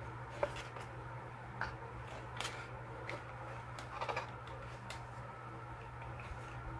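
Light clicks and rustles of plastic washi tape sample cards being flipped through and pulled from a wooden box, about six separate taps with a small cluster about four seconds in, over a steady low hum.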